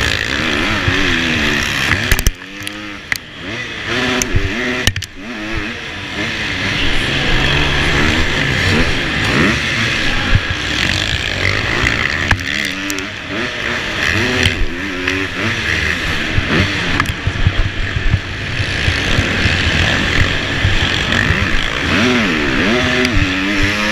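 Motocross bike's engine heard from on the bike, revving up and down hard through turns and straights while racing on a dirt track, with brief drops off the throttle about two and five seconds in.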